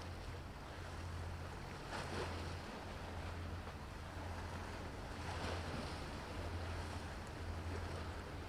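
Sea waves washing and lapping, with two swells of splash about two seconds in and again past the middle, over a steady low hum.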